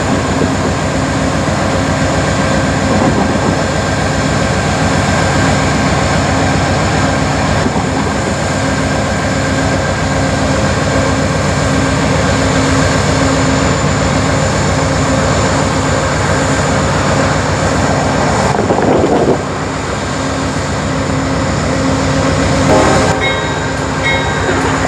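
Amtrak passenger train rolling past at close range: a steady, loud rumble and rattle of wheels on the rails, with an even, repeating beat. A short surge about three-quarters of the way through is followed by a slightly lower level.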